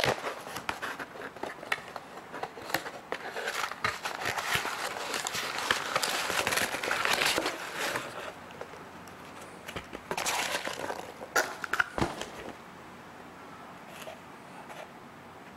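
Cardboard mailing box being opened and its packaging handled: rustling, scraping and crackling of cardboard with sharp clicks and knocks. The handling is busiest over the first eight seconds and again about ten to twelve seconds in, then dies down.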